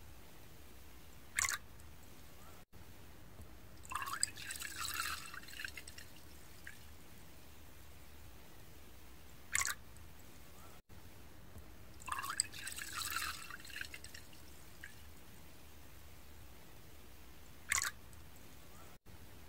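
Makgeolli poured in a thin stream into an earthenware cup, splashing and trickling for about two seconds, twice. Between the pours, single drops plop into the full cup, three times.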